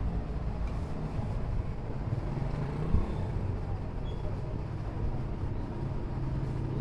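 Steady low mechanical rumble with a single sharp knock about three seconds in.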